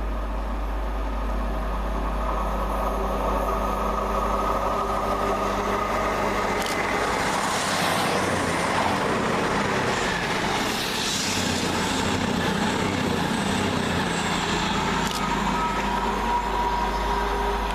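Two coupled Class 220/221 Voyager diesel-electric trains passing, with engine drone and a rush of wheel and rail noise that swells in the middle and then eases.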